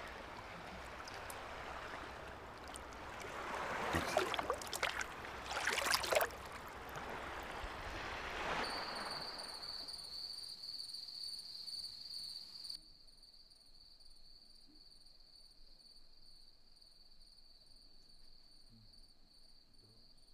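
Sea water sloshing and splashing around people standing in it, with louder splashes about four and six seconds in. From about nine seconds crickets chirp in a steady high trill. The water sound cuts off abruptly a few seconds later, leaving the crickets alone.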